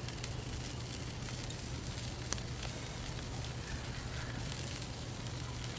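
Wood fire burning under a rotisserie: a steady hiss with a few faint crackles and pops, over a low steady hum.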